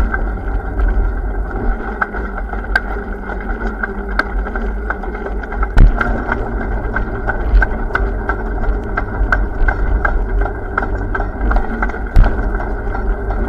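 Wind rumbling on the microphone and road noise while riding a bike, with frequent sharp rattling clicks.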